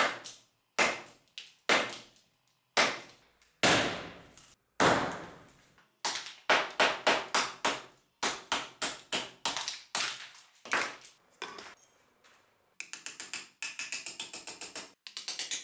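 Bearded axe chopping into a piece of wood on a chopping block: hard, separate strikes with a short decay after each, coming faster in the middle. Near the end a quicker run of lighter taps.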